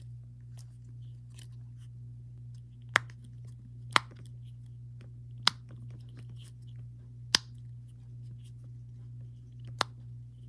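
Dimple on a fidget spinner being pressed: five sharp clicks spread across several seconds, with fainter handling ticks between them, over a steady low hum.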